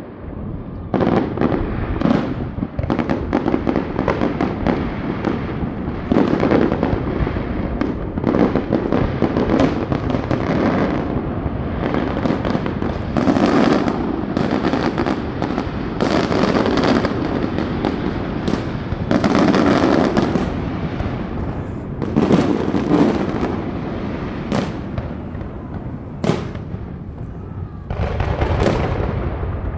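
Fireworks going off in a dense barrage, loud bangs and booms in quick succession with crackling between them.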